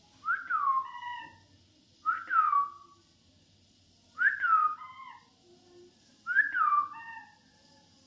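Ringneck parakeet whistling four times, about two seconds apart, each call a sharp whistle sliding down in pitch.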